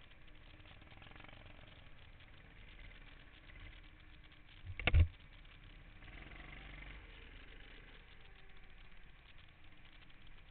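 Go-kart engines running, heard from a camera mounted on the kart. A single short, loud thud about five seconds in.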